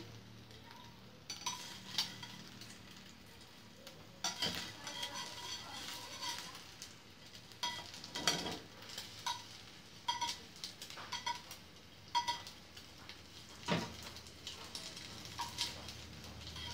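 A metal spoon scraping and knocking against a ceramic-coated frying pan as egg is pushed and folded into an omelette. Under it the egg sizzles faintly in the hot pan.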